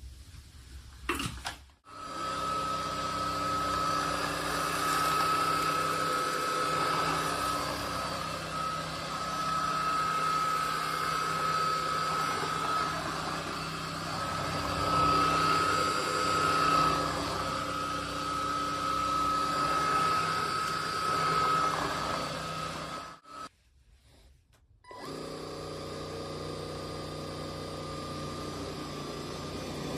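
Cordless stick vacuum running with a steady motor whine. It switches off about 23 seconds in and starts again about two seconds later, running quieter.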